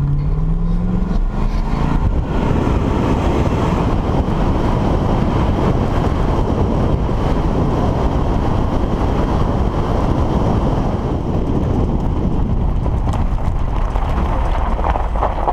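A vehicle driving at speed: steady engine and road noise with wind buffeting the microphone, the engine rising in pitch as it speeds up right at the start.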